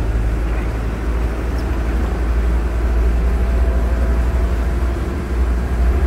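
Steady low rumble of a boat under way, with no break or change.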